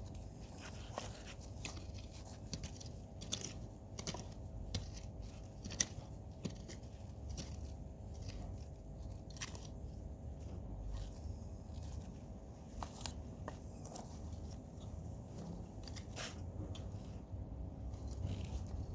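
Soil being dug through to harvest potatoes: irregular crunches and scrapes, a few sharper clicks among them, over a steady low rumble.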